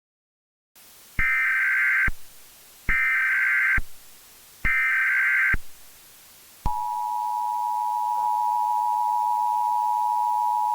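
Emergency Alert System SAME header: three roughly one-second bursts of harsh digital data tones, about a second apart. These are followed by the steady EAS two-tone attention signal, which opens an emergency alert broadcast.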